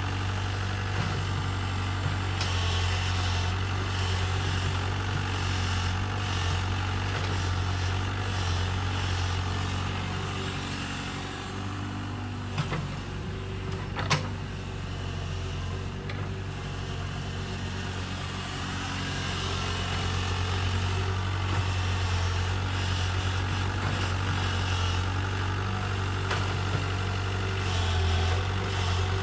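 Kobelco excavator's diesel engine running steadily, easing off a little about a third of the way in and picking back up later, with two sharp knocks about halfway through.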